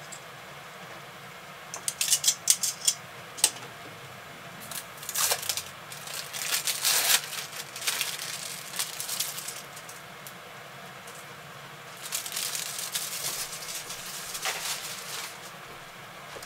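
Metal kitchen tongs clicking several times in quick succession, then plastic film crinkling and rustling in two stretches as a wrapped cheese slice is opened and laid on the sandwich.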